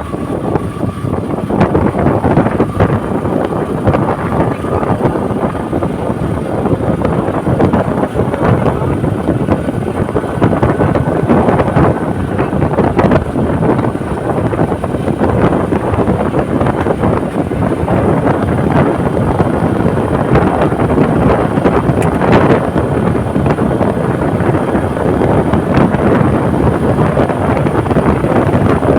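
Wind buffeting the microphone: a loud, steady, gusty rush throughout. A faint thin tone is heard briefly near the start and again about halfway through.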